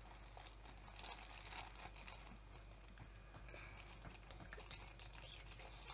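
Faint rustling and crinkling of a small paper packet being handled and opened by hand.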